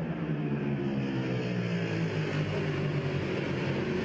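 Racing motorcycle engine running steadily, its pitch slowly falling.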